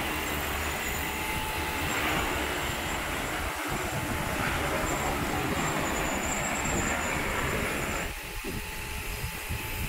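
Pressurised water spraying from the nozzles of a soft-washing drone's spray boom, over a steady mechanical running noise. The sound drops and thins about eight seconds in.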